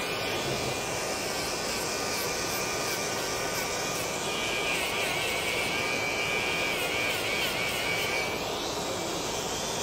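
Electric nail file (e-file) with a sanding band spinning against callused skin on the sole of a foot: a steady high motor whine over a grinding hiss as the callus is buffed down, growing louder for a few seconds midway.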